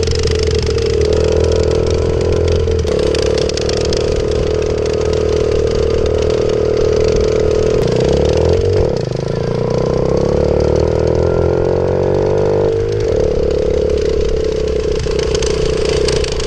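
Small single-cylinder minibike engine running steadily under way, heard from the rider's own saddle. Through the middle, a second minibike's engine runs close alongside, its pitch crossing and beating against the first.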